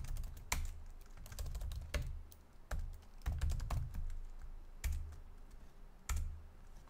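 Typing on a computer keyboard: irregular keystrokes in short runs with small pauses, over a faint low hum.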